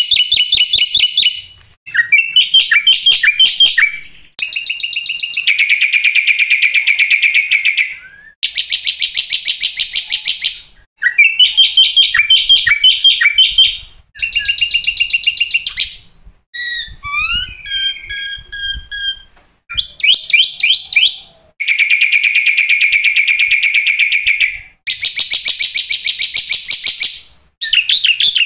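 Black-winged myna (jalak putih) song: loud bursts of fast, rattling chatter a couple of seconds long, broken by short pauses. About two thirds of the way in comes a run of varied whistled notes and glides, in the mix of mimicked fill-in phrases this bird sings.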